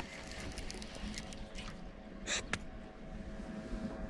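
Camera handling noise: quiet scattered clicks and rustles, with a brief louder scuff a little over two seconds in, over a faint steady hum.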